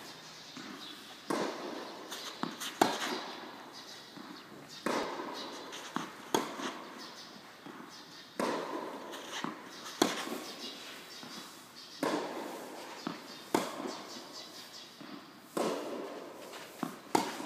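Tennis ball strikes and bounces echoing in a large indoor court hall: sharp pops in pairs about every three and a half seconds as forehand topspin shots are hit over and over, each followed by a short reverberant tail.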